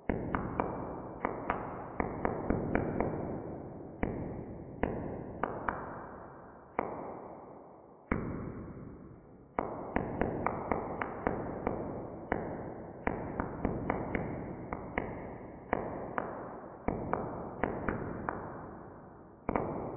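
Irregular sharp pops at uneven intervals, sometimes several a second and sometimes a second or two apart, each trailing off in a fading hiss. These are recorded clicks from stressed plants, made by air bubbles forming and bursting in the water channels of the stem, brought down into the audible range.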